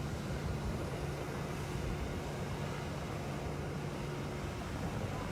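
Motorboat engine running steadily with a low, even hum, under a wash of wind and water noise.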